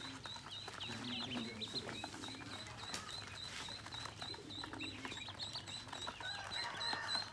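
A crowd of ducklings peeping, a high chirp repeating several times a second with many overlapping calls, along with small splashes and clicks from bills dabbling in a plastic basin of water.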